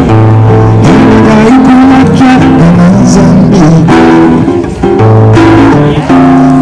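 Background music led by guitar, with a moving melody over low bass notes.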